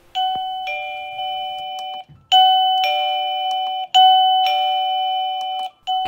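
Aimason wireless doorbell receiver playing its two-note ding-dong chime three times as its volume button is pressed, each chime a higher note falling to a lower one. The first chime is quieter and the next two are louder, the volume stepping up.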